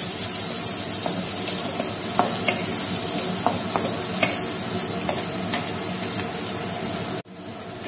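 Chopped small onions and fennel seeds sizzling in hot oil in a wok, with a spatula scraping and clicking against the pan as they are stirred. The sizzle cuts off abruptly near the end, leaving quieter sizzling.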